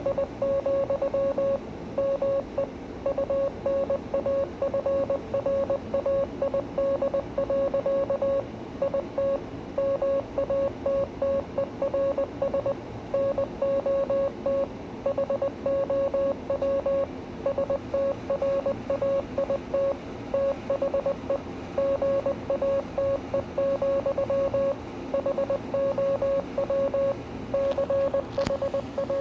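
Morse code keyed by hand: a steady mid-pitched beep switched on and off in short dots and longer dashes with gaps between letters and words, spelling out text.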